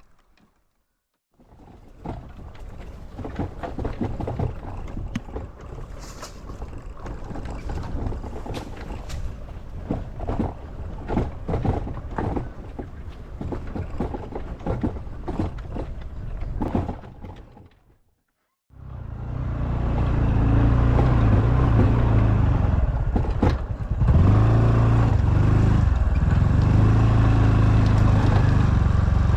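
Honda Super Cub's small single-cylinder four-stroke engine running steadily under way, with wind noise, over the last ten seconds or so. Before that, after a brief silence, comes a long stretch of irregular knocking and rattling over a low rumble, cut off by another short silence.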